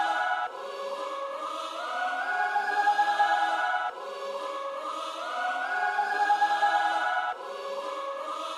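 Background music: a choir-like sung phrase that climbs through held notes and swells, repeating about every three and a half seconds.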